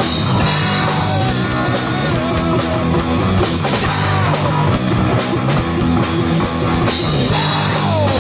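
Rock band playing an instrumental stretch of a song live, with guitar and drums and no singing.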